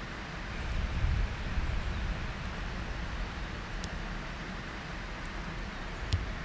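Steady outdoor wind and rustling hiss, with a low wind rumble on the microphone about a second in and two faint sharp clicks, one near the middle and one near the end.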